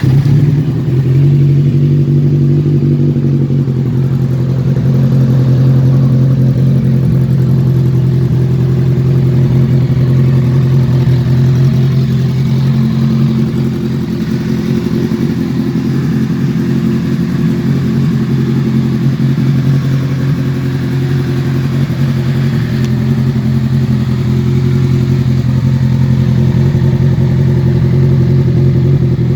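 Kawasaki Z1000SX's inline-four engine running at a steady speed, its exhaust note holding an almost level pitch throughout.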